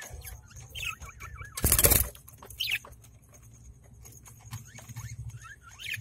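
Budgerigars giving short, scattered high chirps, with a loud brief rustling knock about two seconds in.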